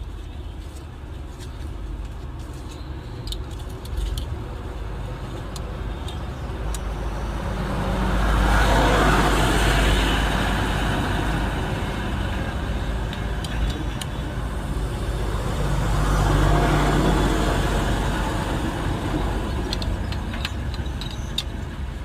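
Motor vehicle noise over a steady low rumble, swelling twice, each time rising and fading over a few seconds.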